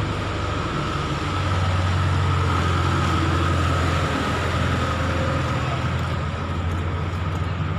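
Vehicle engine idling close by, a steady low rumble with a thin steady whine above it.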